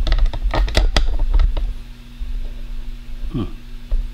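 Plastic model kit being handled and set standing on a cutting mat: a quick run of sharp plastic clicks and knocks in the first second and a half, then fewer, over a low rumble.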